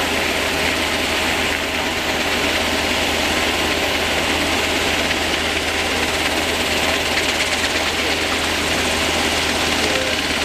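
UH-60J helicopter hovering low overhead: the steady din of its main rotor and turboshaft engines, unbroken throughout.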